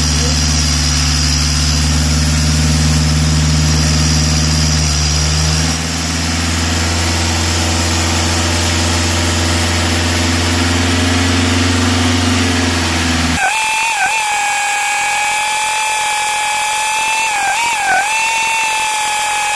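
Skoda 1.9 TDI four-cylinder turbo diesel held at about 2200–2500 rpm while turbo-cleaning solution is drawn into its intake. About six seconds in its pitch shifts, and some seconds later the low drone drops out under a steady high whistle that wavers twice.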